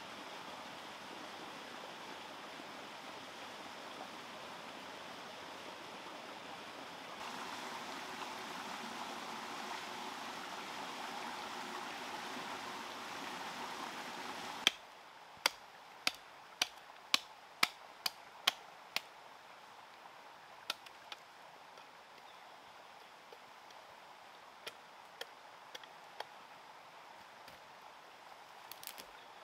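Steady heavy rain, a step louder about seven seconds in, cutting off abruptly about halfway through. Then a run of about eight sharp knocks, roughly two a second, followed by a few scattered ones.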